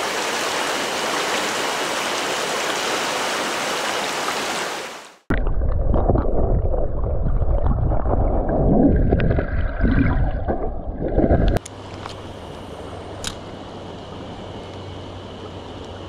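Mountain stream rushing over a riffle for the first few seconds. It fades out and cuts to the muffled, low rumble and gurgle of the current heard from underwater. About two thirds of the way in this switches to a quieter, steady flow of shallow water.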